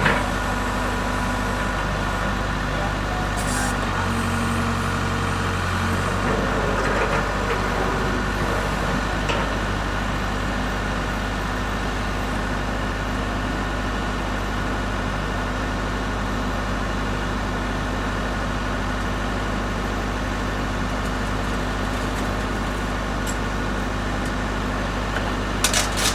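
Case Super L backhoe loader's diesel engine running steadily. Its low drone grows louder for a couple of seconds about four seconds in, and a couple of short knocks come near the end.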